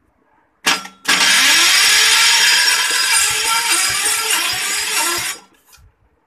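Kirloskar DA20 diesel engine being started for the first time after a piston ring change. It catches about a second in and runs loud and clattery, rising in speed, then stops suddenly about four seconds later.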